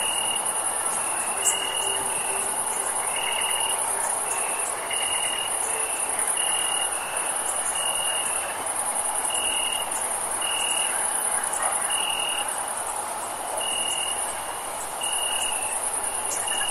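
Crickets chirping on a summer night: a continuous very high-pitched trill that breaks off briefly now and then, with a lower, shorter chirp repeating about once a second. A steady faint hum sits in the background.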